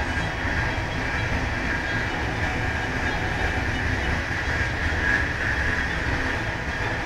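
Train running along the track, heard from inside the train: a steady rolling rumble with a constant high hum over it.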